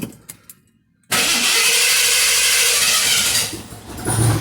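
Car engine being started: a short near-silence, then about a second in a sudden loud burst of cranking and firing that lasts about two seconds before dropping to a lower, steady idle.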